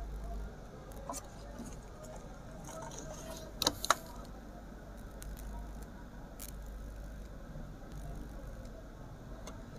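Small metallic clicks and taps as a soldering iron and wire are worked against an amplifier's heatsink terminal, with two sharper clicks close together nearly four seconds in, over a faint low hum.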